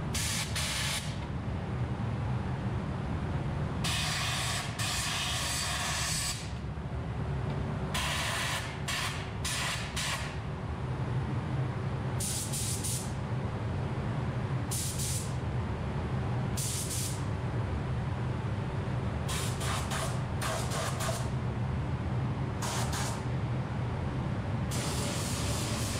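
Gravity-feed spray gun spraying paint in short passes: the air hiss starts and stops as the trigger is pulled, about nine bursts of a second or two each with gaps between. A steady low hum runs underneath.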